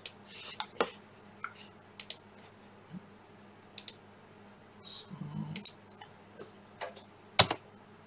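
Scattered clicks of a computer mouse and keystrokes on a keyboard, several in quick pairs, the loudest a sharp click near the end.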